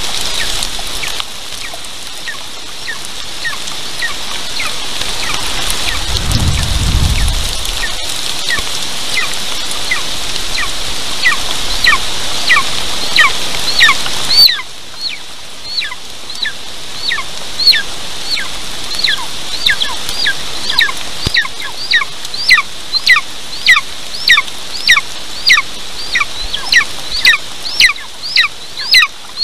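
Golden eaglet calling over and over with short, high, downward-hooked calls that get louder and come faster, more than one a second by the end. For the first half, rain hisses steadily and then drops away sharply; a brief low rumble comes about six seconds in.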